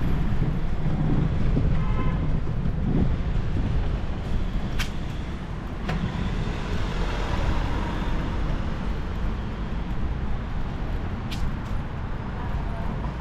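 Steady low rumble of wind and road noise while riding a bicycle, with motor traffic and a few sharp clicks.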